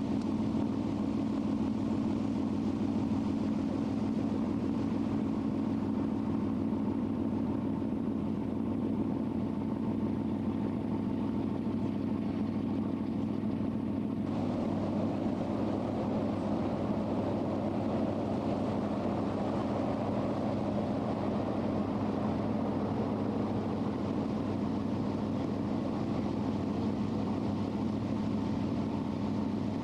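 Lake excursion boat's engine running steadily, heard on board as a constant low drone with a hiss of wind and water over it. The background noise shifts slightly about fourteen seconds in.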